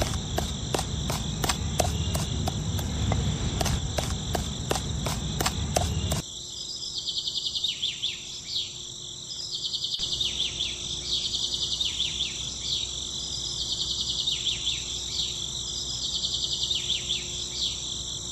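Insects chirring steadily in a high, pulsing chorus. For the first six seconds, irregular small clicks and scraping over a low rumble sit on top, then cut off suddenly.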